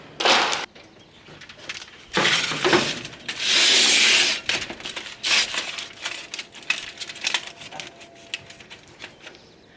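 Kitchen handling sounds: a few short rustling, hissing bursts, then a run of light clicks and clinks.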